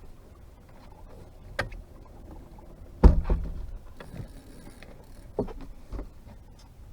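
A few knocks against a boat, with one loud heavy thump about three seconds in and a brief high hiss after it, as a hooked catfish is fought and handled aboard.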